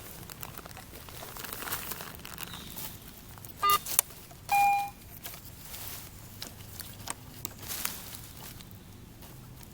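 Dirt being dug and handled, with scraping and crunching throughout. About three and a half seconds in comes a short high metal-detector beep, and a second later a longer, lower detector tone, the detector answering a buried target.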